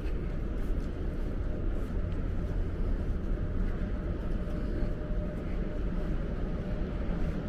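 Steady low rumble of outdoor urban ambience beside railway tracks, with a faint steady hum and no distinct events.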